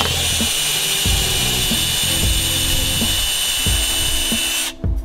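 Cordless drill boring a twist bit through a steel elbow bracket: a steady, high-pitched cutting whine that stops shortly before the end.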